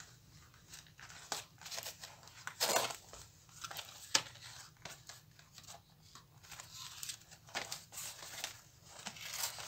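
A small cardboard crayon box being handled and turned over in the hands: soft, scattered rustling and scraping of the packaging, with a louder rustle about three seconds in and a sharp click a little after four seconds.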